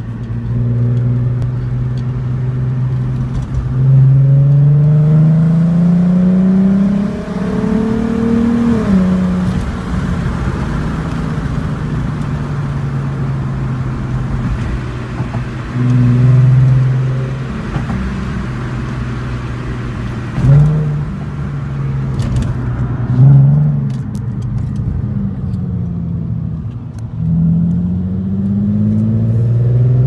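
Volkswagen Golf R32 Mk5's 3.2-litre VR6 engine, heard from inside the cabin. It is held at steady revs, then about four seconds in the car launches hard and the engine note climbs for about five seconds until an upshift drops it. It then runs steadier with a few short bursts of throttle, and begins another hard acceleration with rising pitch near the end.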